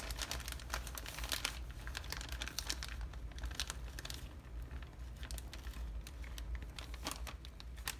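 Plastic bag of shredded mozzarella cheese crinkling as it is held and dug into. The crinkling is densest in the first second and a half, then comes off and on.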